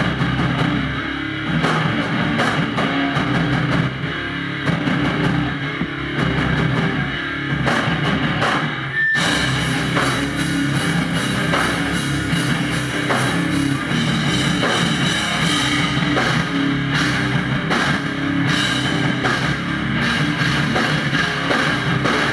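A loud heavy band playing live, with electric guitars and a pounding drum kit, heard from the crowd.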